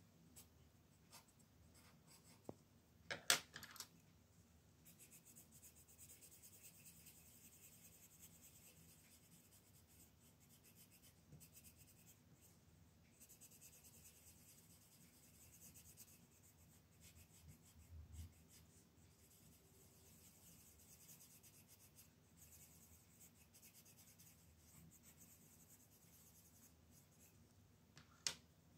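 Colored pencil scratching softly across a coloring-book page in steady shading strokes, faint throughout. A sharp tap about three seconds in and another near the end.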